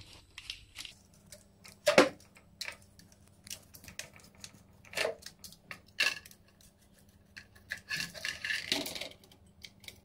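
Screwdriver turning the mounting screws of a CPU cooler into a motherboard: irregular clicks and scrapes, with sharper knocks about two, five and six seconds in and a rougher scraping stretch near the end.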